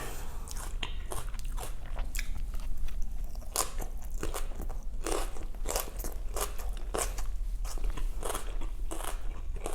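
Close-miked chewing of crisp, crunchy food, with irregular sharp crunches several times a second.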